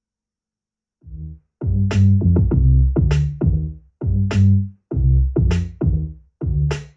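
Music played back loudly by a portable Bluetooth speaker: an electronic track with a heavy drum-machine beat and deep bass, coming in about a second in after a brief silence.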